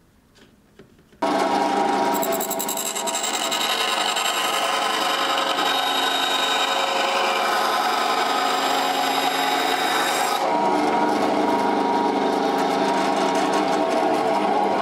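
Benchtop band saw running with a steady whine that starts abruptly about a second in. The blade cuts through a small block of wood until about ten seconds in, then runs on free.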